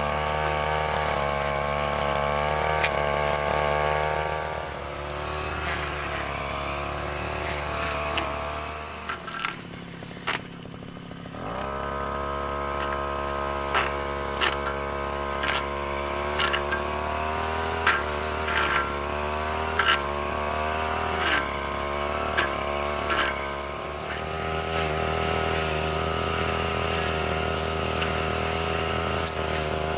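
STIHL FR 3001 brushcutter engine running at high speed, its pitch wavering as it works. About nine seconds in it drops away for a couple of seconds, then picks back up, with sharp clicks and knocks scattered through the middle of the stretch.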